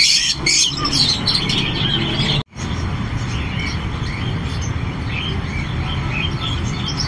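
Many caged birds chirping and tweeting together in many short, overlapping calls over a steady background noise. The sound drops out for an instant about two and a half seconds in, then the chirping carries on.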